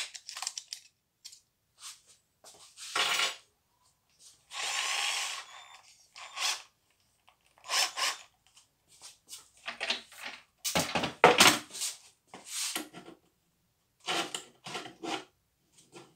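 Cordless drill being fitted with a metal hole saw: a series of separate clinks and rattles of the saw cups and the chuck being turned and tightened, with a short run of the drill of about a second and a half about five seconds in.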